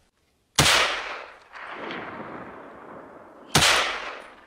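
Two gunshots about three seconds apart, each sudden and loud and trailing off in a long rolling echo.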